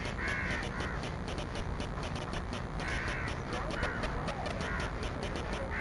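Crows cawing: several short caws, some in pairs, over steady background noise with a fast, even ticking.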